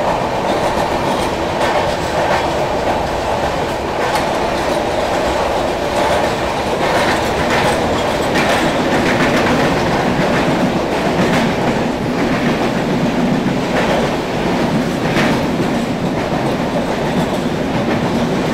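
Mandovi Express passenger train running at speed through a tunnel, heard at an open coach door: a loud, steady noise of wheels on rail, with repeated clickety-clack as the wheels pass over rail joints.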